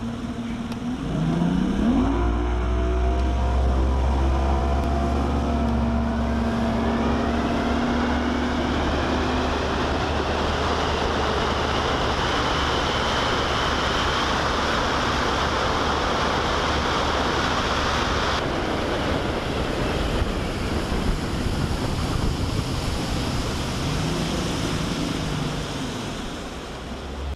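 Bass boat's outboard motor winding up in pitch as it accelerates over the first few seconds, then running steadily at speed with a heavy rush of wind and water against the hull. The sound eases off near the end as the boat slows.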